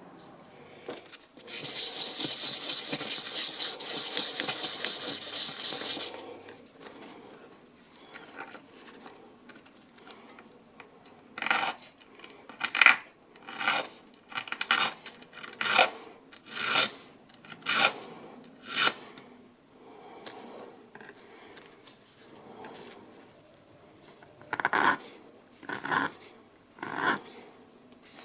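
Sandpaper rubbed by hand on the metal of an XS pistol sight to take it down. First come a few seconds of fast back-and-forth strokes, then single swipes about once a second, and three more near the end.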